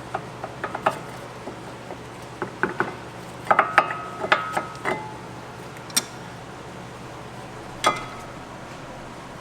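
Metal clinks and taps of hand tools and brake parts being handled while new front brake pads are fitted into a car's caliper. They come in small bunches, busiest in the middle, with two single sharp clicks later on.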